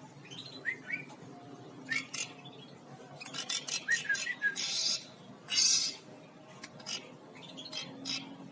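Agitated pet bird calling: short rising chirps mixed with several harsh, noisy bursts of about half a second, a sign of the bird acting fierce.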